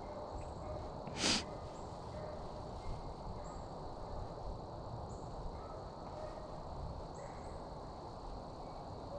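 Quiet outdoor ambience with faint, short animal calls recurring in the distance. About a second in, one short loud hiss.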